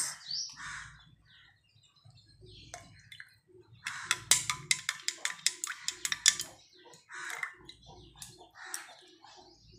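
A metal spoon stirring syrup into a glass of water, clinking rapidly against the glass, about six clinks a second for two or three seconds from about four seconds in.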